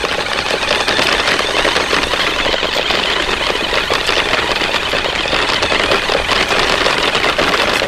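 Small electric motor and gears of a toy car running steadily, with a dense rattling buzz.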